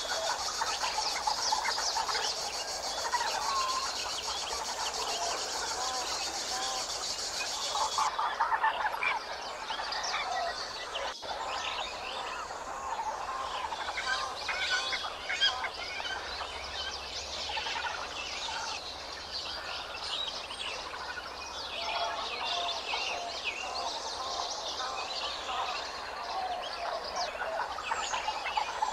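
A chorus of birds chirping and calling, with many short calls overlapping. For the first eight seconds or so a high, steady buzz runs alongside, then stops suddenly.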